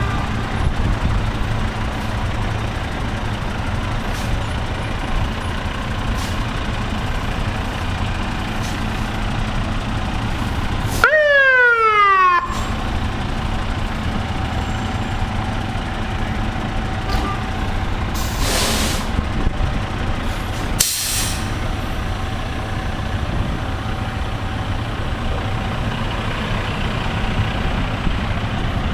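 Fire trucks' engines running in a steady low rumble, with a short loud siren blip falling in pitch about eleven seconds in and two brief air-brake hisses a little later.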